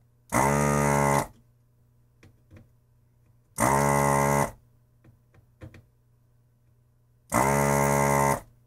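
Vacuum pump of a handheld desoldering gun buzzing in three bursts of about a second each, a few seconds apart, each rising briefly in pitch as it starts. These are three pulls of suction clearing the solder from the three leads of a JFET on a circuit board.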